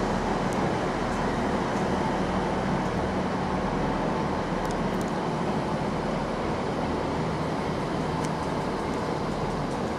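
First ScotRail Class 158 diesel multiple unit's underfloor diesel engines running at a steady rumble and hum, with a few faint clicks.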